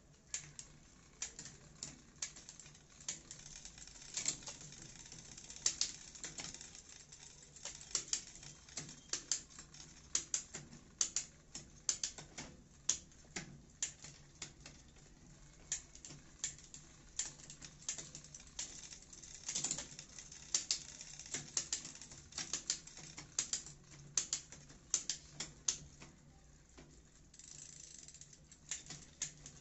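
Bicycle drivetrain turned by hand to test newly fitted gear shifters: the chain running over the 8-speed rear cassette and through the rear derailleur, with a stream of irregular light clicks and ticks, several a second, some sharper than others.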